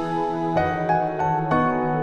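Background music: light melodic notes struck at a steady pace, about three a second, over a held low tone.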